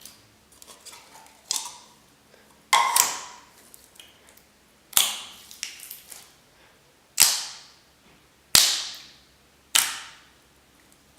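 Thick slime being pressed and played with, giving a series of loud, sharp pops, about six, one every second or two, with quieter squishy clicks between them.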